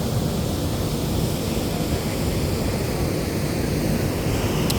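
Steady low rumble aboard a moving lake cruise ship.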